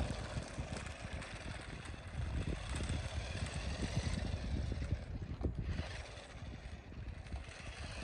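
Rhybor electric remote-control car driving on rough asphalt, its motor whine and tyre rumble loudest as it passes close at the start, then fading as it drives away.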